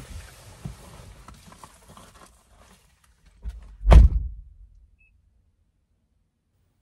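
Rustling and small knocks as the driver climbs out of the seat, then a Mazda's driver door slammed shut about four seconds in, one loud, dull thump heard from inside the cabin. After it the closed car is quiet.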